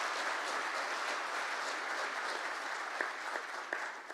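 Audience applauding at the close of a speech, the applause thinning out near the end to a few last separate claps.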